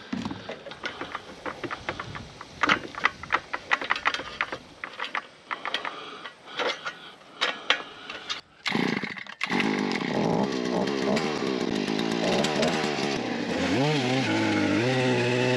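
Small primer-bulb gas engine being started: several seconds of irregular clatter, then it catches about nine seconds in and runs steadily, rising in pitch and holding higher near the end.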